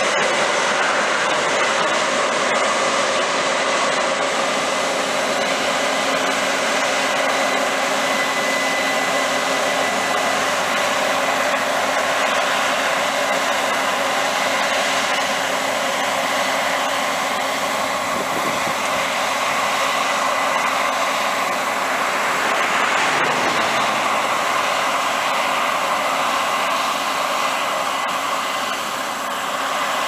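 Case IH 8230 combine running steadily while harvesting soybeans: a continuous whir of engine and threshing machinery, with a faint high whine through the first half, easing slightly near the end as the machine moves away.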